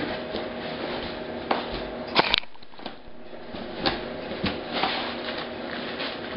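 Handling of a cardboard shipping box being opened: flaps rubbing and rustling with scattered knocks and the crinkle of plastic packaging, and one sharp click about two seconds in.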